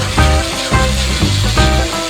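Background music with a regular pulse of bass notes and a melody moving over it.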